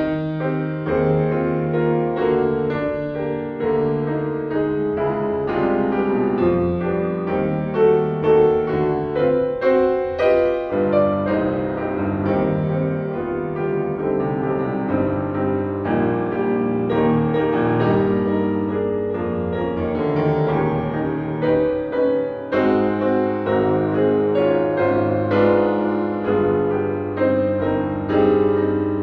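Yamaha grand piano played solo: a continuous piece with dense many-note chords over a low bass line, new notes struck every fraction of a second.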